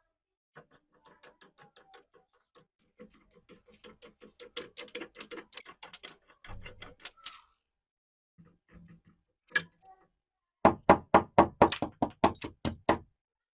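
Metal being tapped and struck with a hammer, a sign of work on the rusty hand drill's seized parts. Light, irregular taps give way near the end to a quick run of about a dozen loud strikes, about five a second.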